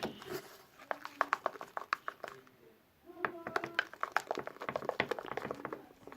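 Rapid small sticky clicks and crackles from slime being stirred and worked by hand in its container, stopping briefly just before the middle and then going on.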